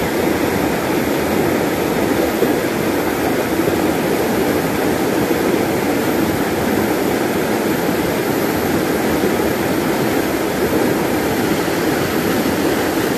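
Steady rush of a shallow, rocky stream running over stones and small rapids.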